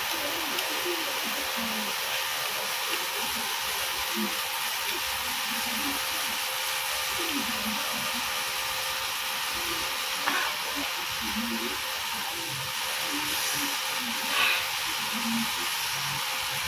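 Electric desk fan running: a steady, even hiss, with a faint low murmuring voice underneath and two brief soft sounds in the second half.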